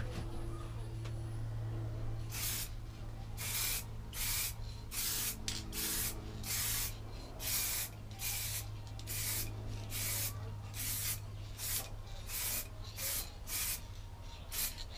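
Aerosol spray paint can hissing in a long run of short bursts, each under half a second, starting about two seconds in.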